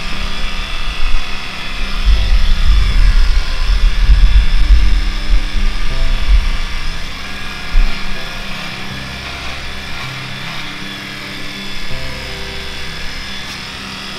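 Background music, with the steady buzz of small cordless electric clippers running through a miniature horse's forelock.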